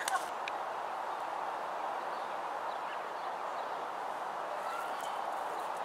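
Steady outdoor background hiss with a few faint, short bird-like chirps.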